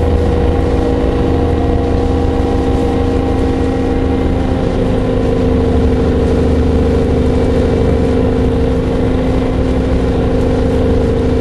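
Orion VII low-floor diesel-electric hybrid bus running, a steady drone at one unchanging pitch over a low rumble.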